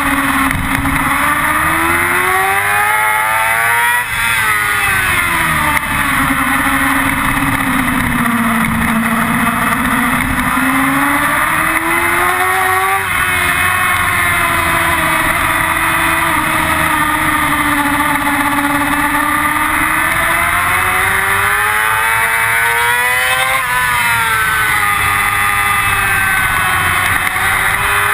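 Yamaha R6 inline-four engine at speed on track, its revs climbing and falling as the bike runs through corners and straights, with sudden drops in pitch between climbs, under heavy wind noise on the onboard microphone.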